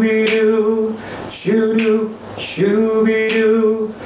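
A solo baritone voice singing unaccompanied, a cappella: three short phrases of held, steady notes with brief breaths between them.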